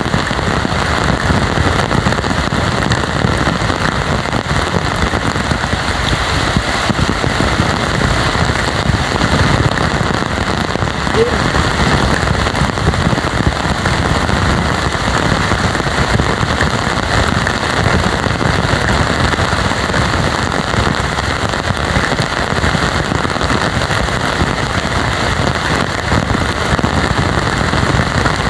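Heavy tropical rain pouring steadily, a dense, even patter of drops on the ground and surroundings.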